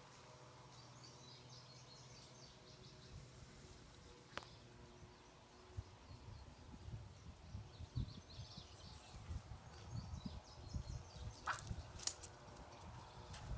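Quiet outdoor yard ambience with faint, high bird chirps coming and going. From about halfway, irregular low thumps and scuffs set in, with a few sharp clicks near the end.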